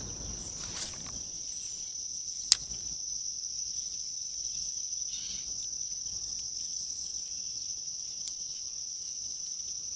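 Insects trilling in a steady, high, unbroken chorus, with a single sharp click about two and a half seconds in.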